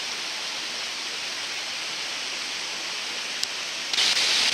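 Steady rushing of a mountain river, an even hiss of running water that gets louder and brighter about four seconds in.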